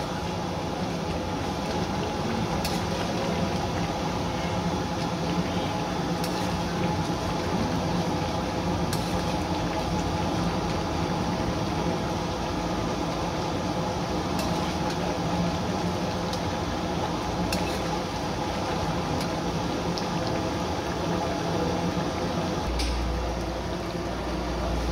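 Mutton karahi simmering in a steel wok over a gas flame, its liquid bubbling steadily as the water cooks off. A few sharp clicks of the steel ladle against the wok; a low hum comes in near the end.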